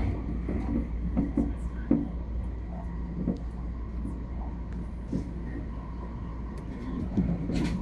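Tobu 60000 series electric train running, heard from inside the front car: a steady low rumble with irregular wheel knocks from the rails and a faint steady whine, and a short hiss near the end.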